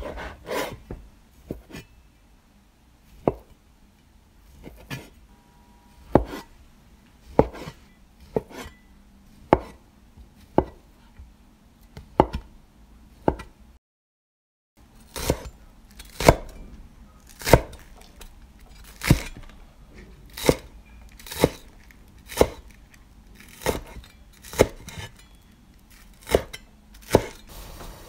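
A large stainless cleaver chopping on a bamboo cutting board, first slicing a soft pale block and then green onion stalks. Each stroke lands as a sharp knock on the wood, about one a second, coming a little quicker after a brief break about halfway.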